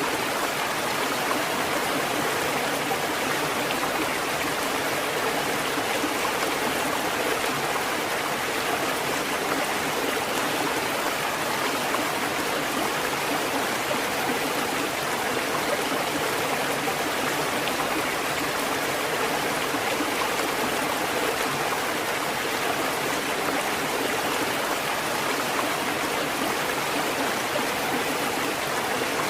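Water fountain running, with a steady, even wash of splashing and trickling water that does not change.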